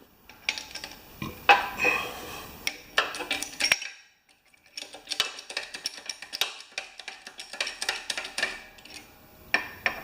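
Metal clanking and clinking from handling a homemade jack press and tools while breaking a stubbornly tight tyre bead off a lawn tractor wheel rim: a few separate clanks, a short pause, then a quick run of small clicks and a last clank near the end.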